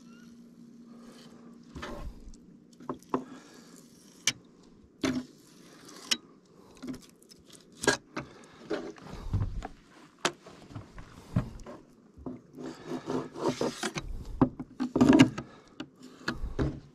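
Fillet knife clicking and scraping against a plastic fillet table as the rib bones are cut out of a kokanee fillet. Scattered sharp clicks and knocks, busiest near the end, with a few dull thumps.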